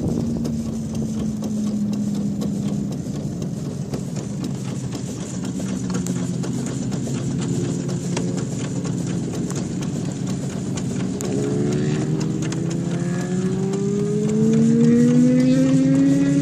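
Racing motorcycle engines on the nearby speedway: one holds a steady note that sags slightly and fades in the first few seconds, then one rises steadily in pitch and grows louder through the last five seconds as it accelerates. Beneath them is the low, steady running noise of the 1910 Stanley Steamer rolling along the pavement.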